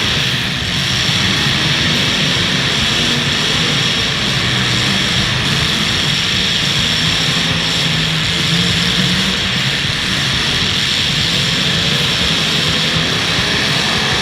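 Engines of several full-size demolition derby cars running hard together in one loud, steady drone.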